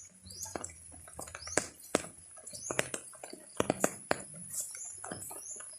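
Small birds chirping over and over in short, high, falling chirps, with scattered sharp clicks and taps and a faint steady high tone underneath.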